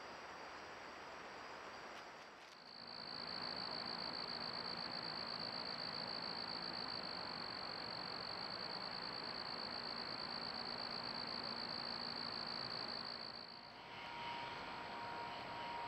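Night insects calling: one steady, high-pitched pulsing trill over a soft hiss, starting suddenly a few seconds in and stopping near the end, with fainter insect calls around it.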